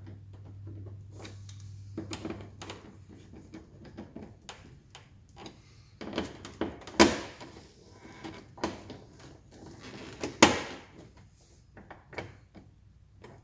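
Hand screwdriver tightening screws into a front licence-plate holder: small irregular clicks and scrapes of the screwdriver and screws, with two louder sharp knocks about seven and ten seconds in.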